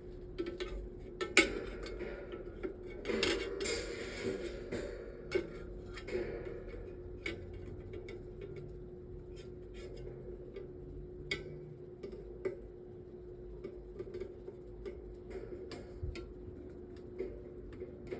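Screwdriver working at the blade-mounting screw of a metal table fan: scattered light metallic clicks and clinks, with a stretch of scraping a few seconds in, over a steady low hum.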